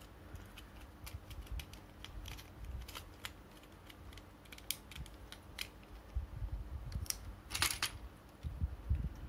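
Small, sharp clicks and taps of hard plastic toy parts being handled and worked apart by hand, around a metal shaft and plastic lock collar, with a denser burst of clicks near the end.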